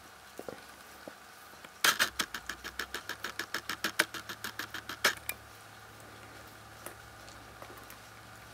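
Shetland sheepdog licking and mouthing a large dried bone: a quick run of sharp clicks, about six or seven a second, starting about two seconds in and lasting about three seconds. He licks rather than gnaws it.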